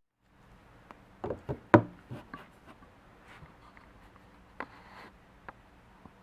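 Hard knocks and clicks from parts being handled, with no engine running: a quick cluster of knocks between about one and two seconds in, then a few scattered single clicks.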